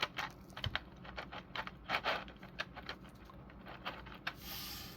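Small hard plastic action-figure parts being handled, with a run of irregular light clicks and taps. A short soft hiss comes near the end.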